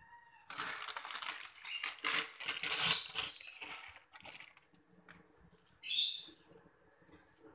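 Plastic instant-noodle packet crinkling as it is opened and the dry noodle block pulled out. About six seconds in, a short sizzle as the noodle block is set into the hot pan.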